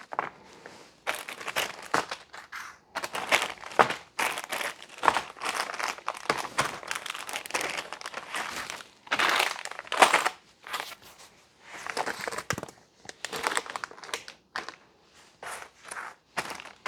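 Packing material being crinkled and crumpled by hand as items are unwrapped, in irregular bursts of crackling with short pauses.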